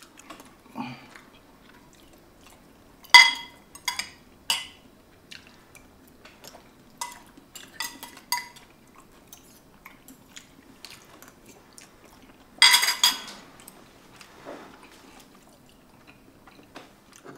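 Metal knife and fork clinking against a bowl while eating, a few sharp ringing clinks at a time, with the loudest clatter about thirteen seconds in.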